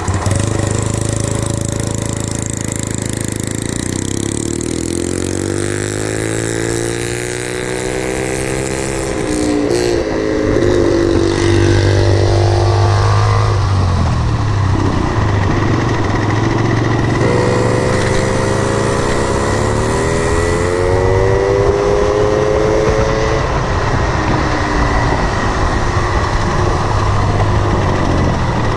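The 50cc two-stroke Yamaha moped engine of a home-built mini bike running, its revs climbing and falling back about a quarter of the way in, and again just past halfway.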